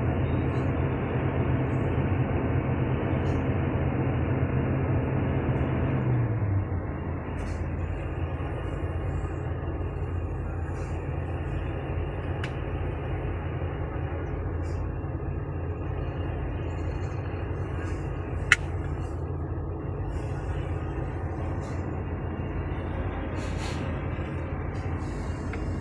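Small waves breaking and washing up a sandy beach, with a steady low rumble. The rumble eases about six seconds in, and there is one sharp click later on.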